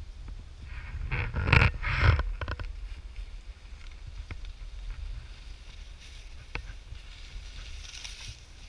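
Wind rumbling on a helmet-level action camera's microphone while skiing downhill, with skis hissing and scraping over groomed snow; a louder rush between about one and two and a half seconds in, then a few faint clicks.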